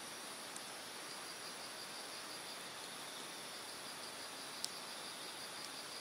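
Mountain stream water running steadily, with insects chirping in even, rapid pulses over it. About two-thirds of the way through, a single sharp pop from the burning hardwood fire, and a fainter one near the end.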